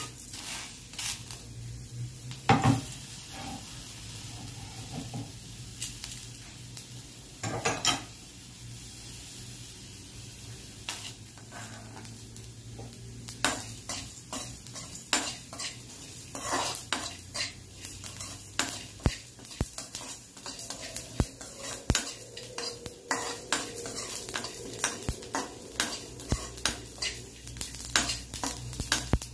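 Steel spoon scraping and clinking against a kadai while whole spices are stirred to lightly roast them. There are a few separate knocks in the first half, then quick, frequent clinks from about halfway on.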